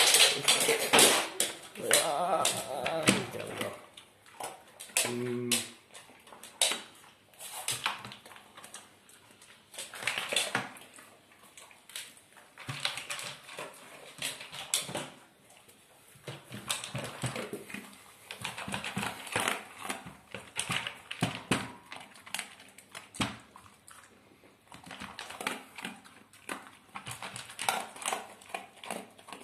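A greyhound eating dry kibble from a plastic slow-feeder bowl: irregular crunching and kibble clattering against the bowl's ridges, busiest and loudest in the first few seconds.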